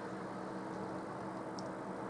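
Steady background hiss with a faint low hum, and one faint tick about one and a half seconds in.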